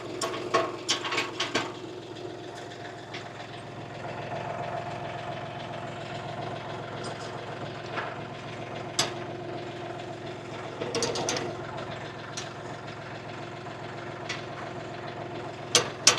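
UHI 254 tractor's diesel engine idling steadily, with sharp metal clicks and clanks of hitch parts being handled, a few at a time, shortly after the start and again around the middle.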